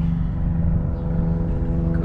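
A steady low mechanical hum with several constant tones held through it: a machine running.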